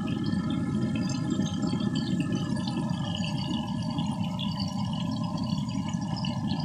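Gas burner running steadily under a wok, a low even roar, with a light crackle of meat frying in oil.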